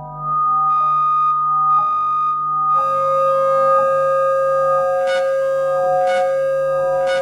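Soma Lyra-8 organismic synthesizer and Gecko Loopsynth playing an improvised industrial-ambient drone: overlapping held tones that turn brighter and fuller about three seconds in, with a soft pulse about once a second after that.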